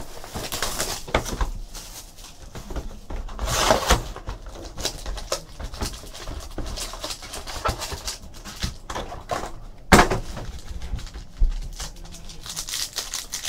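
Packaging of a box of trading card packs rustling and crinkling as it is opened and the packs are torn into, a run of short crackles with a sharp knock about ten seconds in.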